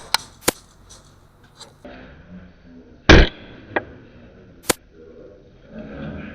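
Sharp clicks and knocks from a spring bolt-action airsoft sniper rifle with a scope camera mounted on it, with one heavy, loud thump about three seconds in and a few single clicks after it.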